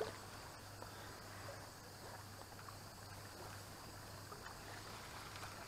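Quiet outdoor ambience at the water's edge: a faint steady low hum with a few soft ticks and a short click at the start.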